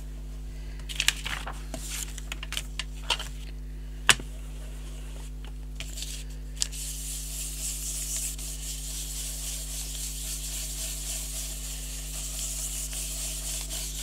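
Craft supplies being handled on a table, with a few light clicks and taps and one sharper click about four seconds in. Then, about halfway through, a steady rubbing hiss begins as colour is worked over paper and runs on to the end.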